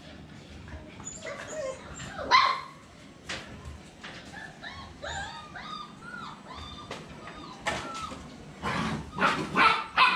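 Phu Quoc Ridgeback dogs barking, one loud bark a little over two seconds in and a quick run of barks near the end, with high whimpering and yipping in between.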